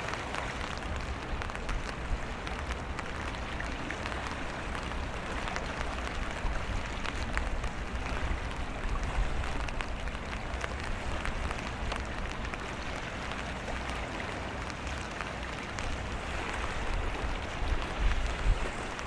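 Steady rain, with scattered ticks of raindrops, and strong wind rumbling low on the microphone. It grows a little louder near the end.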